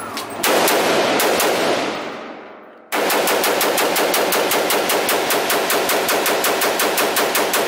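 AR-style rifle firing fast at an indoor range: a short burst about half a second in whose echo dies away, then from about three seconds a long, even string of shots, about seven a second, each ringing off the range walls.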